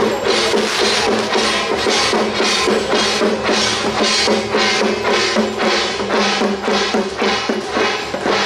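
Temple procession percussion: drums and brass hand cymbals struck together in a steady march beat, about three strokes a second. A held low tone sounds beneath it until about six seconds in.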